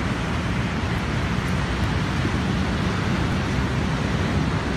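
Steady wind noise on the microphone with ocean surf behind it, a rumbling hiss heaviest in the low end.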